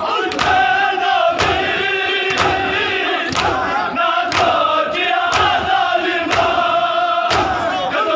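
A large crowd of men chanting a mourning lament in chorus, with a sharp collective slap about once a second as they beat their chests in unison (matam).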